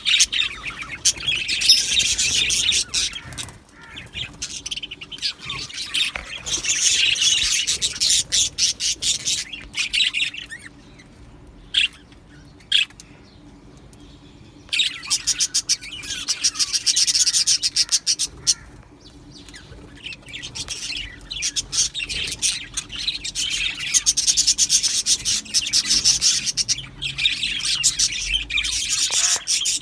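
Budgerigars chattering and warbling, a dense stream of rapid high chirps in bouts that drop away for a few seconds near the middle.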